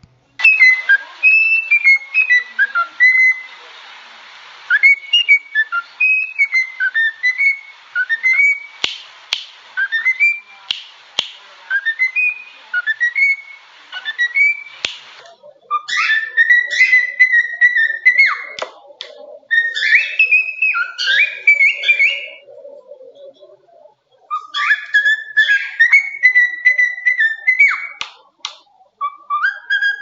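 Cockatiels whistling tunes in short melodic phrases that glide up and down, repeated with brief pauses, with a few sharp clicks in the first half.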